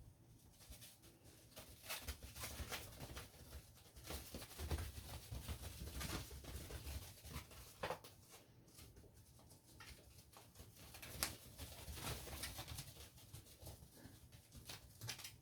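Kittens scampering and scuffling at play: a patter of paws with scattered soft thumps and clicks.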